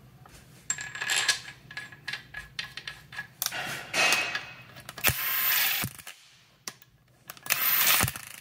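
Metal clinking as a cast-iron main bearing cap with its thrust washers is fitted over the crankshaft. Then a cordless drill spins the cap bolts down with a socket in three short bursts.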